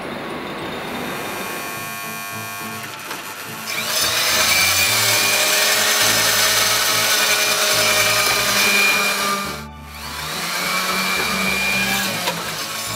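Electric round-knife cloth cutter running and slicing through a thick wool batt: a motor whine with a cutting rush. It gets louder about four seconds in, cuts out briefly near ten seconds, then runs again.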